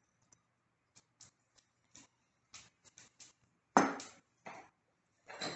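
Small ceramic cup and crockery clicking lightly as maple sugar is poured from the cup over sliced apples in a bowl, then a sharp clack, the loudest sound, a little under four seconds in as the cup is set down on the wooden table.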